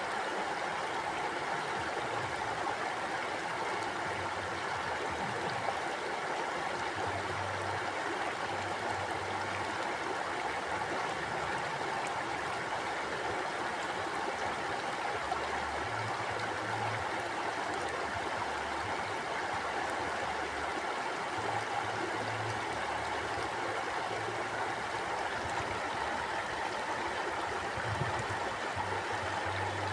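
Mountain river flowing over rocks: a steady rushing and gurgling of water.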